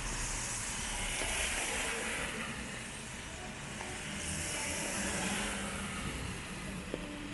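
Rainy city street: a steady hiss of rain and wet pavement, swelling twice as vehicles pass on the wet road.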